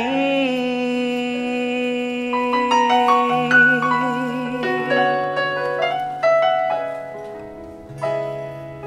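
Live ballad's instrumental interlude. A sung note is held with vibrato for the first few seconds, then a digital stage piano carries the melody over sustained low chords, accompanied by acoustic guitar.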